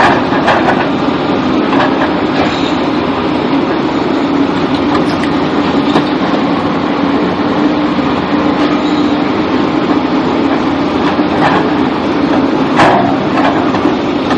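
Steady rumbling noise of a vehicle in motion, with a few short sharp knocks.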